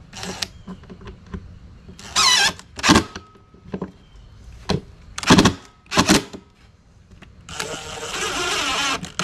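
Cordless drill driving screws to mount a bus bar on a plywood box wall. Several short trigger bursts of motor whine, then a longer run of about a second and a half near the end as the screws are driven tight.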